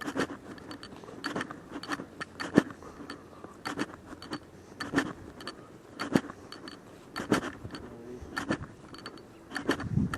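Footsteps of someone walking, with small metal items jingling in step: a clink about every 1.2 s and lighter ticks between.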